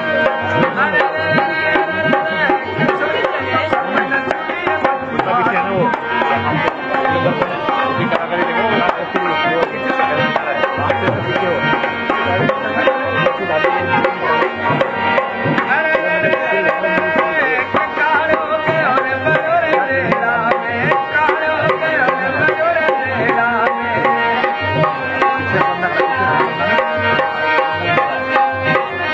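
Indian folk music: a hand drum playing a fast, steady rhythm under a pitched melody line.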